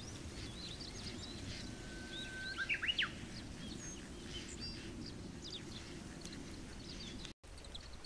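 Wild birds calling over a steady low background noise at a riverside. Small high chirps come and go throughout. The loudest call comes about two seconds in: a held whistle, then a few quick sweeping notes.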